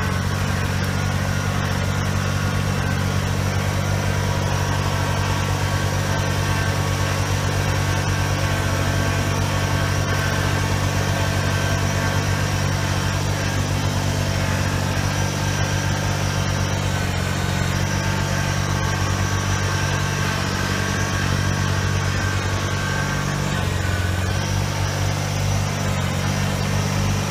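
Kubota compact tractor's diesel engine running steadily as the tractor drives, a constant low drone whose note shifts slightly near the end.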